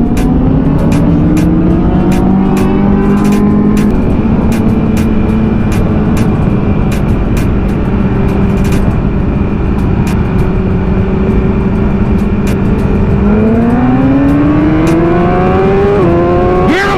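BMW S1000RR inline-four engine under way, heard from the rider's seat with wind rushing over the microphone. Its pitch climbs over the first few seconds, holds steady at a cruise, then rises again as the throttle is opened in the last few seconds.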